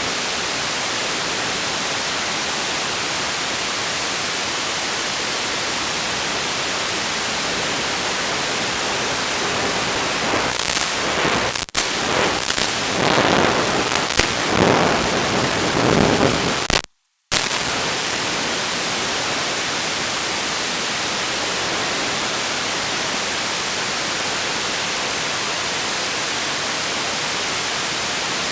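Steady white-noise static hiss, as from an analog FPV video link's audio channel. From about ten seconds in it turns uneven and crackly, then cuts out completely for about half a second before the steady hiss resumes.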